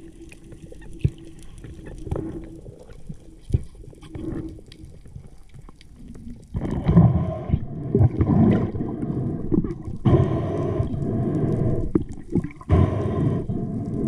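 Underwater sound picked up by a camera in a waterproof housing: scattered faint clicks and a low hum, then from about halfway loud muffled rushing and gurgling in long stretches of a second or more.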